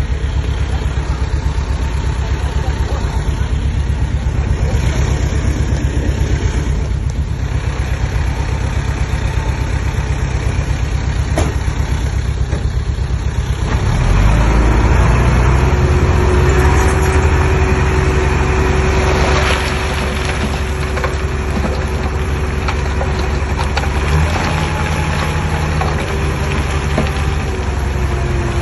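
Komatsu D20P bulldozer's diesel engine running with a low, even pulse. About 14 seconds in it gets louder, with a steady whine added, then eases back a little around 20 seconds.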